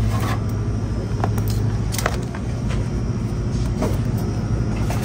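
Steady low hum and rumble of a shop's room tone, with scattered light clicks and knocks from a handheld recording on the move.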